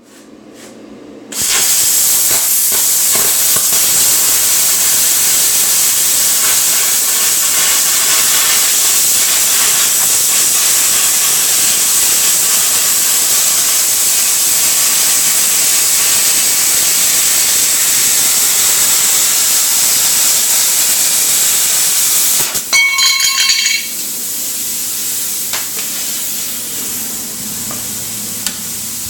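Plasma cutter cutting through steel plate: a loud, steady hiss with a high whistle, starting about a second and a half in and stopping about 22 seconds in. A short sputter follows as the cut ends, then a quieter steady rush of air from the cutter.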